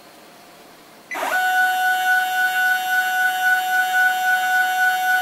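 Stepper motor driving a Sherline rotary table round a quarter turn: a loud, steady, high-pitched whine that starts about a second in with a quick rise in pitch and holds one note.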